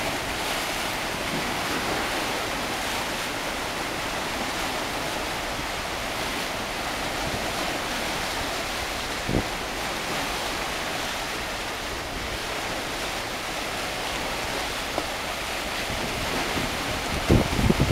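Small sea waves washing and splashing over shoreline rocks, a steady surf hiss. A short low thump about halfway through, and wind buffeting the microphone near the end.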